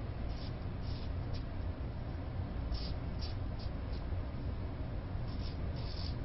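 Single-edge safety razor with a resharpened Feather Seikan carbon steel blade scraping through stubble in short, irregular strokes on a third shaving pass, with a steady low hum underneath.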